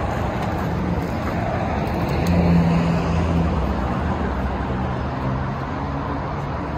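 Steady road traffic noise, with a vehicle engine's low hum growing louder about two seconds in and then easing off.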